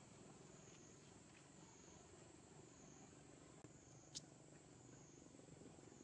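Near silence with a faint, steady, high insect drone that wavers gently in pitch, and one sharp click about four seconds in.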